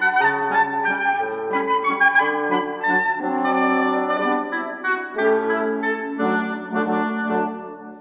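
Background instrumental music with several sustained melodic parts in wind-instrument tones, dipping briefly near the end.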